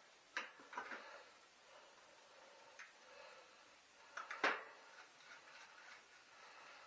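A few light knocks and clinks from bicycle wheels and parts being handled and fitted, with the loudest cluster about four and a half seconds in.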